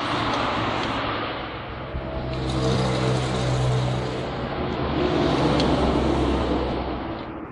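A motor vehicle running, its sound swelling and fading in loudness, strongest in the middle.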